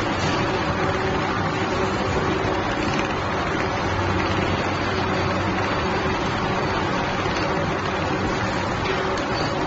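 Computerized template sewing machine with a rotating head stitching at speed: a fast, even needle clatter over a steady motor hum.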